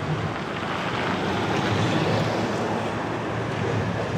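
Steady rumble of a freight train's covered hopper cars rolling away over the rails, mixed with wind on the microphone.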